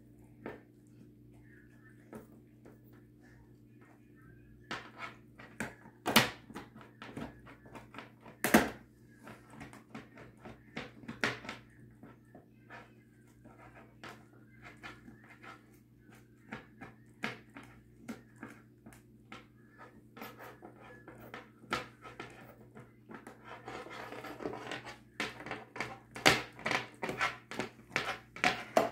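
A dog gnawing and licking a long bully stick: irregular wet chewing clicks and crunches, with a few sharper knocks of the stick, loudest about six and eight and a half seconds in. The dog's breathing is heard between bites, heavier about twenty-four seconds in, where the chewing also grows busier.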